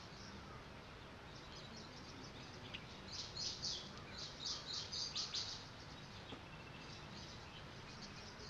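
Faint bird chirping over a steady low hiss: a few scattered high chirps, then a quick, louder run of about eight chirps from about three to five and a half seconds in.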